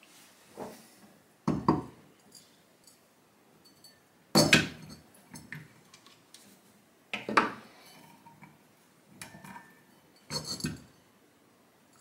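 Metal clinking and knocking of pliers and tools on a refrigerator compressor's cylinder head while prying at its pressed-on caps: about five sharp metal strikes with brief rattles, spaced two to three seconds apart, the loudest about four and a half seconds in.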